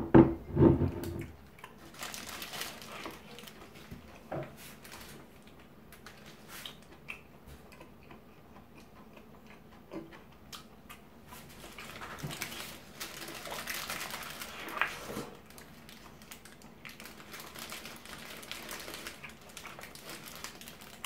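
Close-up chewing and biting of a bulgogi burger, wet and crunchy, with the paper wrapper crinkling in irregular bursts. A loud low knock comes at the very start.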